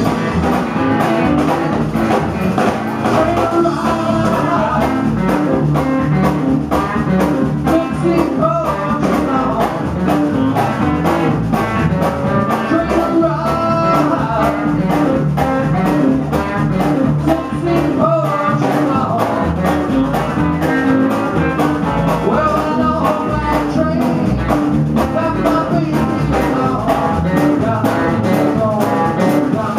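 Small live band playing: upright double bass and drum kit, with a man singing at the microphone.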